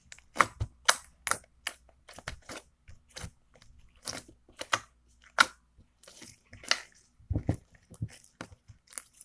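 Slime being squeezed and pressed by hand: a run of irregular sharp clicks and pops, a few a second, that stop near the end.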